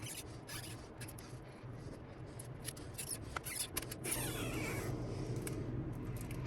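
Small clicks of handling on an open iPhone 7 Plus, then about four seconds in a drawn-out squeal falling in pitch as the battery's stretch-release adhesive is pulled out from under it.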